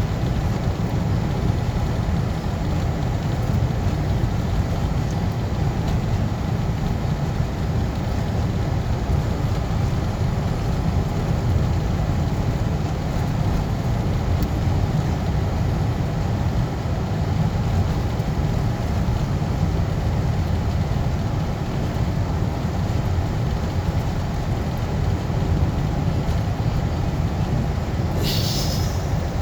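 Car driving, with steady low road and tyre rumble heard from inside the cabin. A short hiss comes in about a second before the end.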